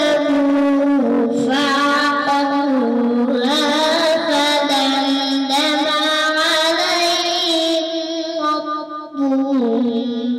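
A boy reciting the Quran into a microphone in a melodic, drawn-out style, holding long notes and gliding between pitches, with a short break for breath near the end.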